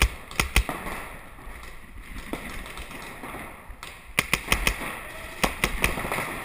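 Paintball markers firing: sharp pops, one at the start and two more within the first second, then two quick strings of several shots each about four and five and a half seconds in.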